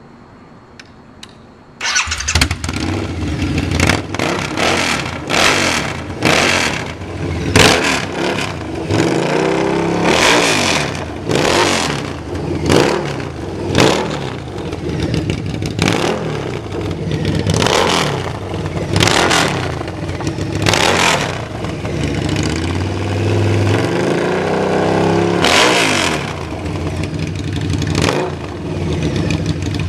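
A 2012 Harley-Davidson V-Rod Muscle's 1250 cc Revolution V-twin, loud with its rear exhaust removed entirely. It fires up about two seconds in, then idles between a long series of quick throttle blips.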